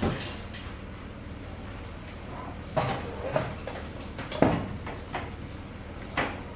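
Dishes and utensils clinking and knocking as they are handled at a kitchen sink: a handful of separate sharp knocks over a steady low hiss.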